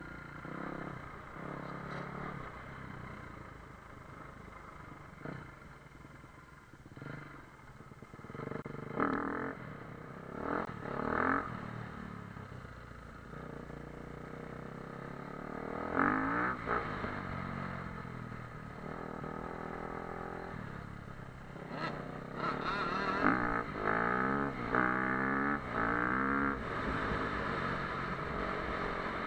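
Motocross bike engine revving in repeated bursts, its pitch climbing and dropping as it accelerates and shifts. The loudest runs come near the middle and again toward the end.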